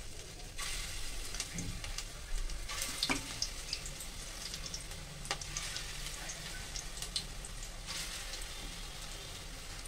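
Besan and grated bottle-gourd (lauki) fritter batter sizzling in hot oil, with scattered pops. The sizzle surges a few times as more portions of batter are dropped into the oil.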